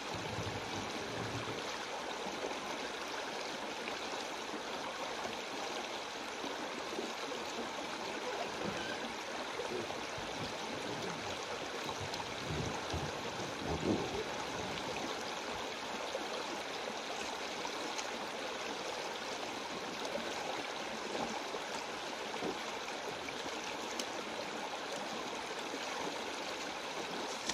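Creek water rushing steadily over a shallow sandstone ledge, with a couple of dull low thumps about halfway through.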